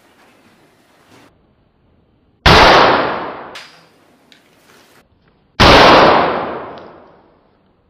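Two loud gunshot-like bangs about three seconds apart, each dying away over a second or so, from a toy match gun that fires by igniting a loaded matchstick.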